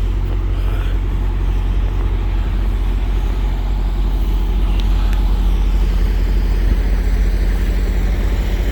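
Truck engine idling, a steady low hum.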